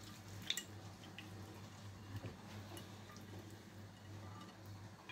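Faint wet squelching and small clicks of hands pressing and turning a fish fillet in a runny marinade on a plate, with a sharper click about half a second in. A low steady hum runs underneath.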